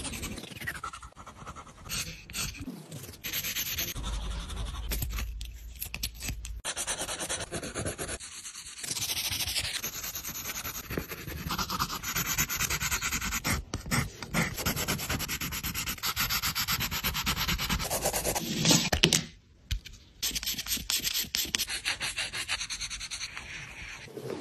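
Pencils scratching and rubbing on paper in shading strokes, with a fingertip rubbing over charcoal to blend it. The strokes stop abruptly now and then before starting again.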